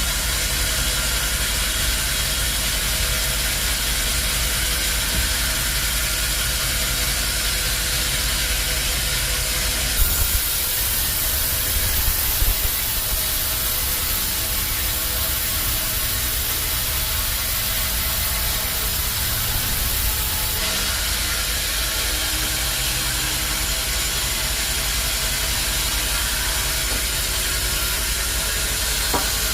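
Band sawmill machinery running steadily, with a hum and hiss throughout. From about ten to twenty seconds in, the noise grows brighter and hissier, with a few small knocks near the start of that stretch.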